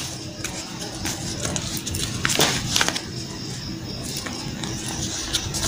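A sheet of paper rustling and crinkling in irregular bursts as it is folded and creased by hand, loudest a little past the middle.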